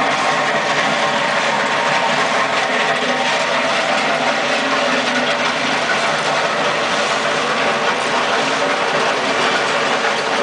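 Mustang 2076 skid steer loader running, a loud, steady mechanical noise with a whirring, gear-like edge that does not let up.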